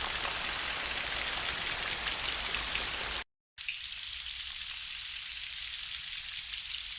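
Rain sound effect: a steady hiss of rainfall that cuts off abruptly about three seconds in. After a brief silence a second, thinner steady hiss plays.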